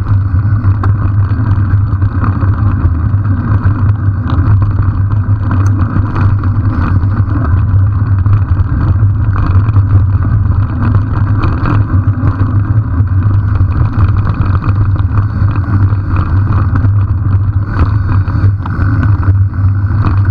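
Wind buffeting a camera microphone on a moving mountain bike, mixed with tyre and frame rumble from riding a rough dirt track: a loud, steady rumble with no letup.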